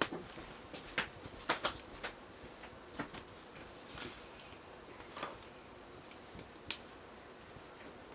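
Wood fire crackling in a clay stove under a pan of heating oil: scattered faint clicks and pops over low steady background noise.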